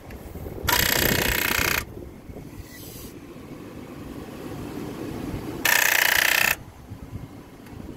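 Two bursts of rapid electrical chattering, each about a second long, from a Chrysler as the key is turned: the starter solenoid clicking rapidly while the engine does not turn over, typical of too little current reaching the starter through the jump leads.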